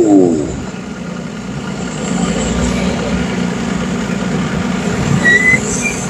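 A motor vehicle engine runs steadily with a low hum. Its pitch swells and falls away right at the start. A couple of short high beeps come near the end.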